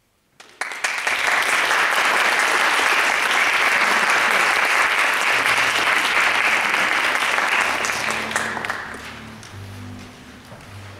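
Concert audience applauding. The clapping starts suddenly about half a second in, holds steady and loud, then fades away from about eight seconds in, with a few faint low notes sounding underneath as it dies down.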